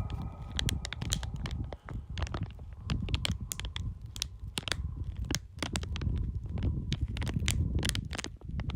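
Foley sound effects: dense, irregular crackling and crunching clicks over a steady low rumble.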